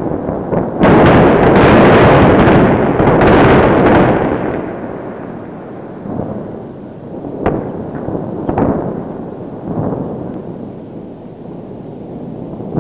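Explosions: several heavy blasts one after another, then a rumble dying away, with two sharp cracks past the middle.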